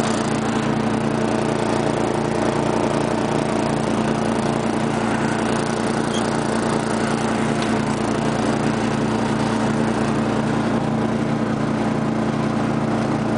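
12 hp industrial/commercial Briggs & Stratton engine of a 1999 Murray rear-engine riding mower, running at a steady speed while mowing grass.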